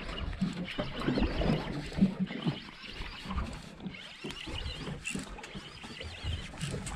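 Fishing reel being worked by hand, with irregular rustling and small clicking handling noise.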